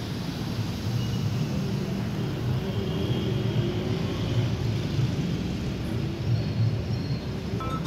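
Low, steady diesel engine rumble with a slight pulsing beat.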